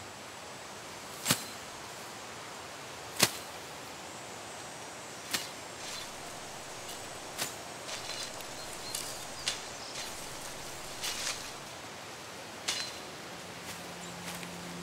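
Steady hiss with sharp clicks or swishes every second or two, irregular rather than rhythmic. The two loudest come about one and three seconds in.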